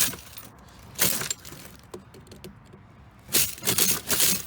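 Sharp metallic cracks and clicks from a payphone's coin box being forced open: one at the start, another about a second in, a few faint ticks, then a quick run of clicks and knocks near the end.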